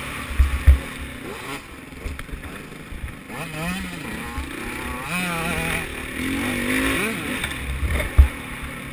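Yamaha YZ125 two-stroke motocross bike engine heard onboard, revving up and down repeatedly as it is ridden around the track. A few sharp low thumps come near the start and again near the end.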